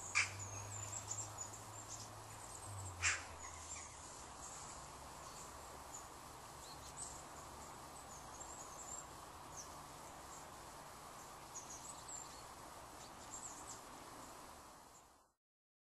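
Outdoor ambience: a steady background hiss with many short, high chirps of small birds. Two sharp knocks sound, one just after the start and one about three seconds in, and a low hum runs under the first few seconds. The sound fades out near the end.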